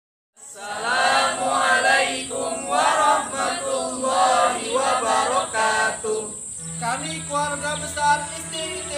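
A group of adults speaking together in unison, a chanted group greeting, over a steady high-pitched whine. A low steady hum comes in near the end.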